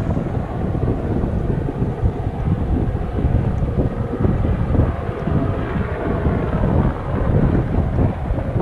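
A helicopter's engine and rotor running close by, just before it lifts off. Wind buffets the microphone at the same time.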